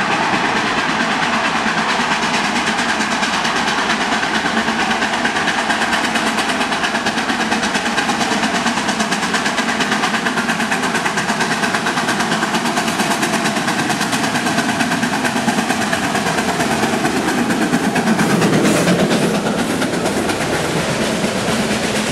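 Narrow-gauge steam locomotive working hard up a mountain grade, its exhaust chuffing in a fast, steady rhythm. The sound grows loudest as the engine passes close about three-quarters of the way in, and its coaches roll by near the end.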